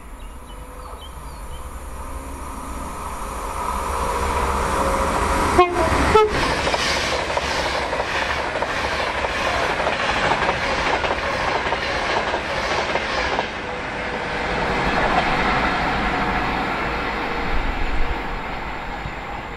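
A train passing at speed on the main line: its noise builds over the first few seconds, two sharp knocks about half a second apart come as it arrives, then its wheels clatter over the rails in a quick regular rhythm for several seconds before the sound swells once more and fades.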